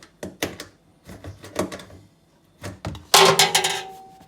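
A few short knocks and clunks, then about three seconds in a loud metallic clang that rings on and fades over about a second.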